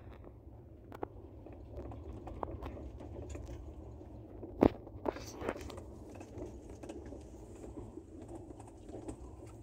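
Steady low rumble inside a train's second AC sleeper coach. A few sharp clicks of a phone being handled cut through it, the loudest about four and a half seconds in.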